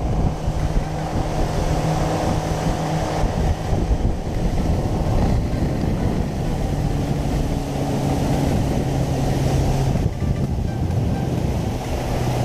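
Small fishing boat's outboard motor running steadily under way, with wind buffeting the microphone and water rushing along the hull. The engine note drops slightly about halfway through.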